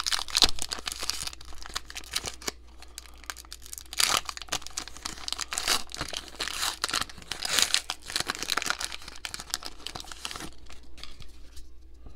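Plastic wrapper of a Heritage baseball card pack being torn open and crinkled, in repeated bursts of crackling.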